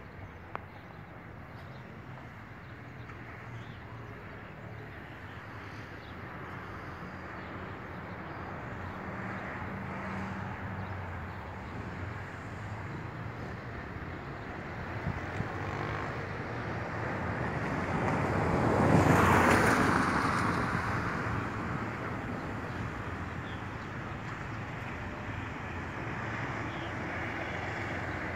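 A road vehicle passing close by: its noise rises over several seconds to a peak about two-thirds of the way through, then fades, over steady outdoor background noise.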